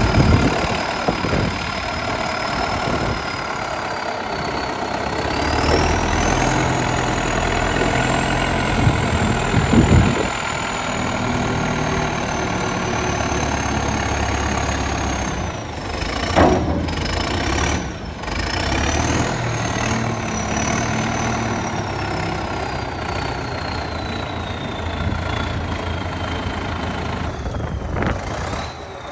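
Case 780 backhoe's diesel engine running, its pitch and load shifting up and down as the machine is worked, with a thin high whine that glides up and down. A few sharp clanks come through it, one about ten seconds in and two more after about sixteen seconds.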